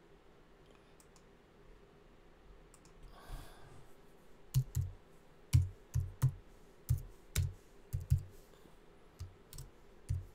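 Computer keyboard keys clicking as a short search is typed: about a dozen keystrokes at an uneven pace, starting about four seconds in.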